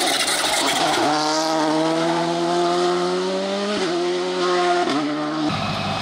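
Volkswagen Polo GTI R5 rally car's turbocharged four-cylinder engine accelerating hard past on tarmac, the pitch climbing steadily and dropping briefly at quick upshifts about four and five seconds in.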